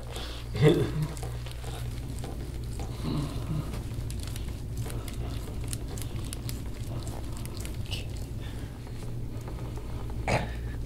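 Faint rustling as a massage roller bar is rolled over a shirt-covered back, over a steady low room hum. A brief voice sound comes just under a second in, and a short sharp burst comes near the end.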